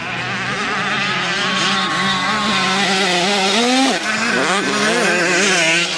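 Several motocross motorcycle engines running hard, their pitch rising and falling constantly as the throttles are worked, with one engine revving up sharply and dropping off about four seconds in.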